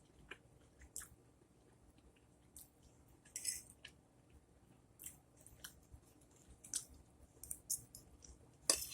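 A person chewing food close to the microphone, soft and wet, with scattered mouth clicks and smacks every second or so and a sharper click near the end.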